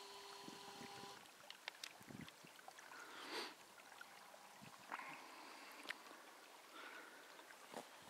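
Faint trickling and gurgling of an unfrozen winter stream flowing between snowbanks, with scattered small clicks.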